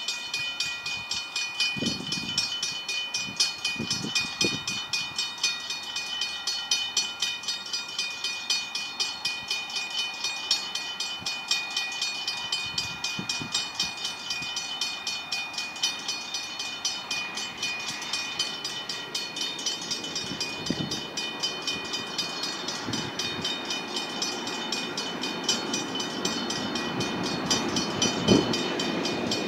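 Mechanical level-crossing bells ringing in a steady, rapid rhythm, the crossing's warning that a train is approaching. A low rumble builds near the end.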